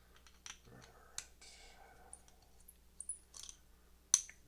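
A deadbolt lock being handled: a few light scattered clicks and brief rustles, with one sharper click near the end, the loudest.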